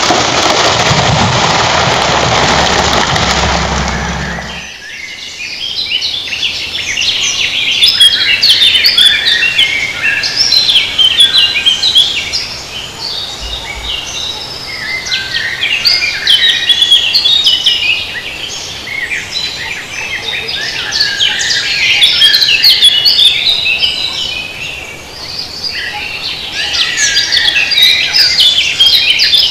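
A loud, steady rushing noise cuts off abruptly about four and a half seconds in. After it, many birds sing and chirp at once, a dense chorus of high trills and chirps that swells and fades.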